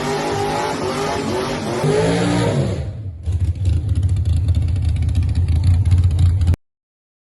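Drag-racing Toyota Corolla's engine held at high revs during a burnout, then the revs drop over about a second and it settles into a loud, uneven low rumble. The sound cuts off abruptly near the end.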